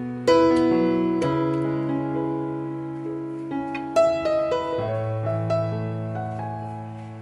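Background piano music: notes and chords struck and left to ring and fade, with fresh chords every second or so.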